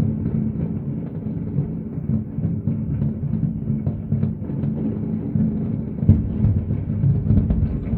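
Dense fireworks barrage from a distance: many shells going off in quick succession and running together into a continuous low rumble of bangs, with one sharper, louder bang about six seconds in.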